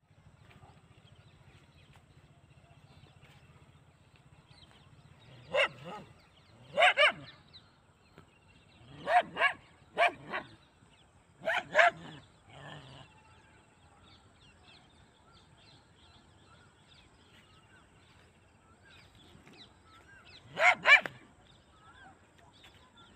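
A dog barking sharply at a small animal it has cornered on the ground, about a dozen barks mostly in quick pairs, with a long pause before a last pair near the end.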